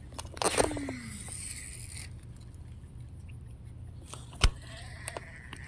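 A few sharp clicks and light clinking, handling noises over a steady low hum. A cluster of clicks comes about half a second in, and the loudest, a single sharp click, about four and a half seconds in.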